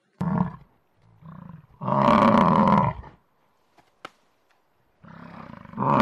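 Buffalo bellowing in a series of deep calls: a short grunt, a weaker call, then a long loud bellow about two seconds in, and another rising call near the end.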